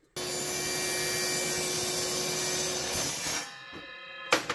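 Miter saw running with its blade cutting into an aluminium compressor motor housing for about three seconds, starting abruptly. The saw is then switched off and winds down with a lingering metallic ringing, and there is a sharp click near the end.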